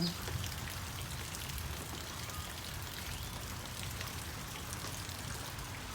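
Rain falling steadily, with the sharp ticks of single drops striking nearby surfaces.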